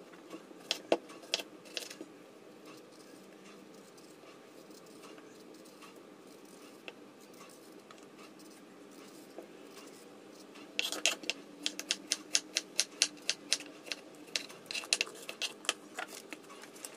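Kitchen knife chopping a cucumber on a wooden cutting board. A few single cuts come near the start, then a quick, even run of chops about four a second begins past the middle as the cucumber is sliced into rounds.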